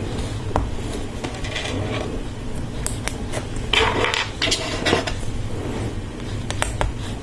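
Hard plastic Lego Technic parts clicking and rattling as they are handled and pins are pushed into place, with scattered sharp clicks and a short flurry of rattling around the middle.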